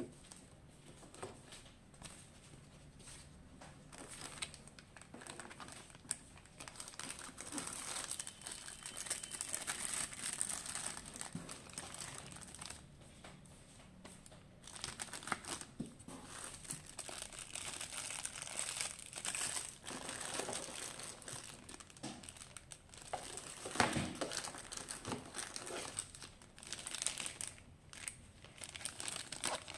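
Clear plastic packaging bags crinkling and rustling in irregular spurts as bagged camera accessories are handled and pulled from a cardboard box. The crackling is quieter for the first few seconds, with one sharper, louder crinkle about three-quarters of the way through.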